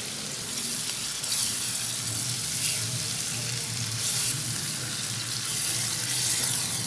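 Onion and spice masala sizzling in a nonstick pan as wet tomato purée is stirred into it with a spatula. The sizzle runs steadily, with louder surges about a second in, around four seconds, and again near the end as the spatula turns the mixture.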